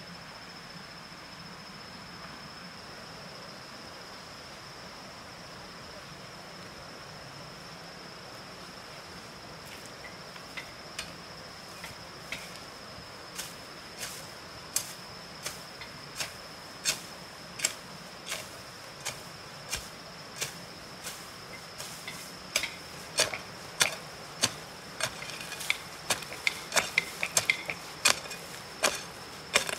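Long-handled hoe striking hard ground in sharp, clear strikes. They begin about ten seconds in at roughly one a second and come quicker and closer together near the end, over a steady high insect drone.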